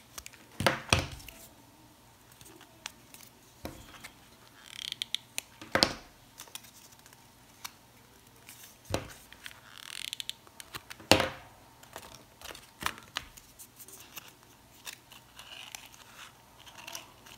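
Purple craft-paper petals being handled and pressed together close to the microphone: rustling and crinkling paper with scattered sharp taps and knocks, the loudest about eleven seconds in.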